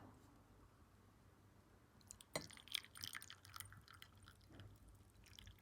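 Mostly near silence, then from about two seconds in a string of faint clinks and a light trickle of liquid: the brewed qehwa being poured into a glass.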